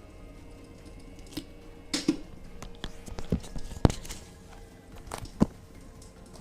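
Crackling wood-fire sound effect played by the fake fireplace's MP3 module: irregular sharp pops and snaps, the loudest a little before four seconds in.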